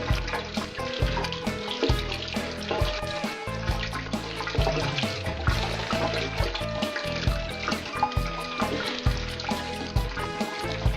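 Tap water running steadily into a sink, with music playing over it that has a steady beat.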